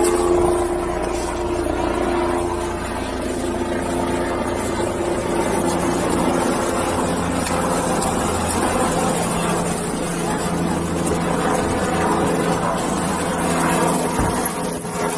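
A steady mechanical drone with a low rumble beneath it, holding an even pitch, and a thin high tone near the end.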